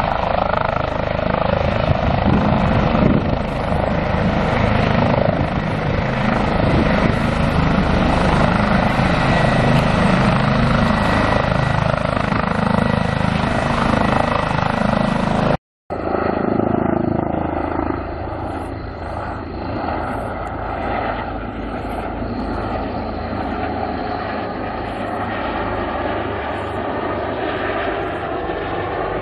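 Airbus H145M twin-turbine military helicopter running close by, a loud steady rotor and turbine noise. About halfway through it cuts off suddenly, and after a split second of silence a somewhat quieter, duller aircraft noise follows.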